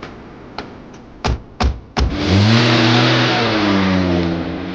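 Car doors slam shut three times in quick succession, then the car's engine comes in loudly and revs, its pitch rising and then easing off as the car moves off.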